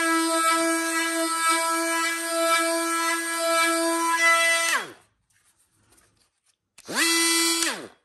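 Milwaukee M12 Fuel brushless oscillating multi-tool with a triangular sanding pad, sanding a wooden board: a steady high-pitched buzz over the scratch of sandpaper. About five seconds in it is switched off and winds down in pitch, then it runs again for about a second and winds down once more.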